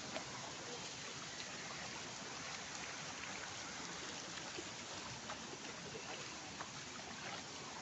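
Steady rush of a waterfall: an even wash of falling water with no breaks.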